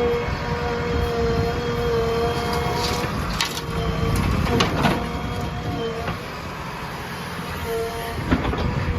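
Heavy diesel machinery running, with a steady whine that breaks off now and then over a low rumble, and a few sharp knocks around the middle and near the end.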